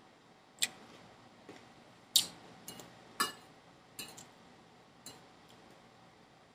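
Metal fork clicking and clinking against a plate at irregular intervals while spearing salad, with the sharpest clinks about two and three seconds in.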